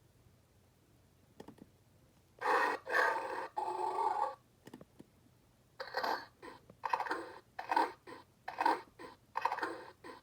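Electronic roar sound effect of The Lost World: Jurassic Park Bull T-Rex toy. After a faint click, a roar of about two seconds in three parts plays, followed by a run of about six short pulsing growls.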